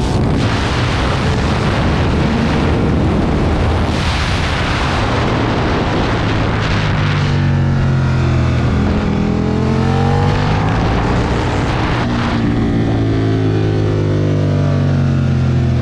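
Aprilia Tuono motorcycle engine heard from on board: at first buried under heavy wind rush at speed, then from about halfway the engine note comes through clearly, its pitch falling and rising again with the throttle at lower speed.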